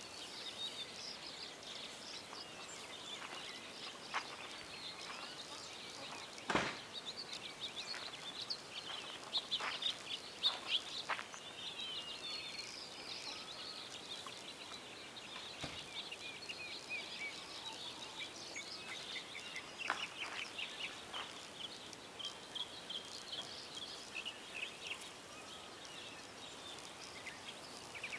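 A small flock of backyard hens clucking softly as they forage, over a steady run of short, high bird chirps and outdoor background noise. A single sharp knock about six and a half seconds in.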